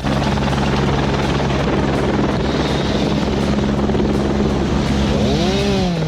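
An engine running steadily at a constant speed, a loud noisy drone with a steady hum under it; near the end its pitch sags slightly and a few short rising-and-falling tones come in over it.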